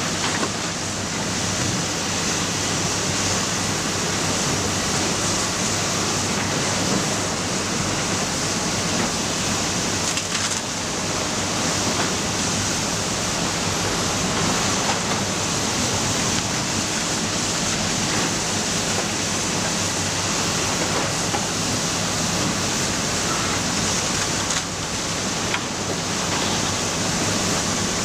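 Matador ME315 excavator's diesel engine running steadily, heard under a constant loud hiss.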